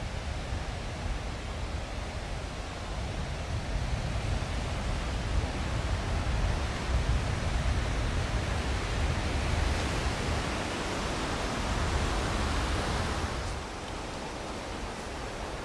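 Surf washing onto a sandy beach, mixed with wind rumbling on the microphone; the wash swells about ten seconds in and drops away sharply a few seconds later.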